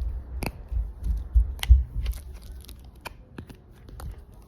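Handling noises: scattered clicks, rustling and crinkling as small craft supplies are picked up and moved, with a few low bumps, the loudest about a second and a half in.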